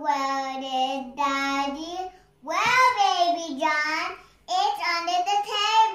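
A young girl singing unaccompanied, close to the microphone, in three long held phrases with short breaths between them.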